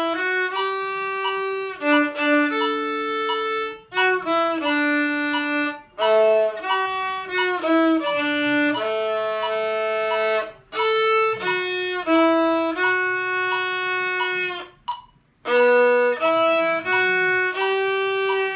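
Solo violin, bowed, playing a slow melody of mostly held notes in phrases, with brief breaks between phrases.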